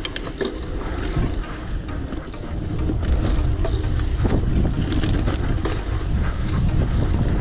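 Mountain bike riding over a dirt trail, recorded on a GoPro mounted on the rider or bike: tyre noise and the bike rattling and clicking over bumps, over a steady low rumble of wind on the microphone.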